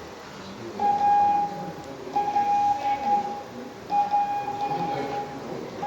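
Morse code practice oscillator beeping a steady tone as a learner sends on a key: long dashes of about a second each, three in a row, with a fourth starting near the end.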